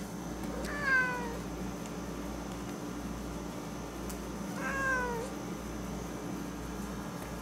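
Siamese cat meowing twice, about a second in and again about four seconds later, each a short call that falls in pitch. A window air conditioner hums steadily underneath.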